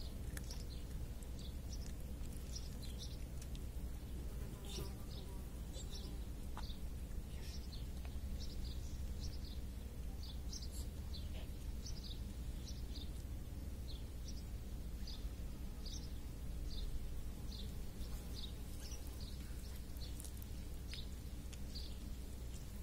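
Small birds chirping, short high chirps about once or twice a second, over a steady low rumble.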